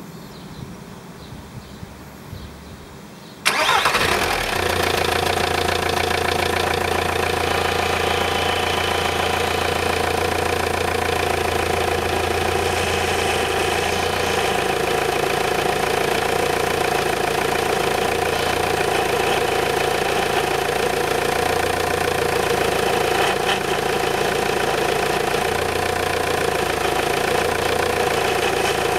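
A VW Sharan's 1.9 TDI four-cylinder turbodiesel starts abruptly about three and a half seconds in and then idles steadily, with the power steering pump running loudly: the pump is low on fluid after a leak from the steering rack.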